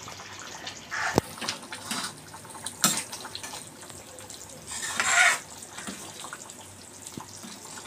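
Metal ladle stirring simmering chicken gravy in a metal kadai: wet sloshing swells a few times, with a sharp clink of the ladle against the pan about a second in.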